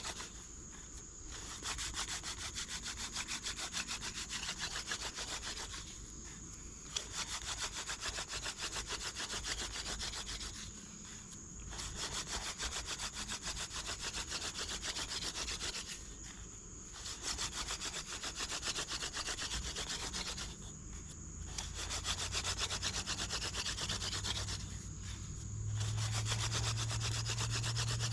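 Hand-drill friction fire: a horseweed spindle spun back and forth between the palms, its tip grinding in a wooden hearth board in fast rubbing strokes as it works toward smoke and an ember. Short pauses break it about every five seconds as the hands reset to the top of the spindle.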